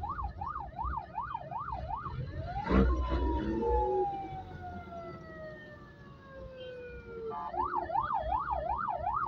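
Ambulance siren switching between a fast yelp of about three warbles a second and a wail: it sweeps up about two and a half seconds in, falls slowly over about four seconds, then goes back to the fast yelp near the end. Road traffic rumbles underneath.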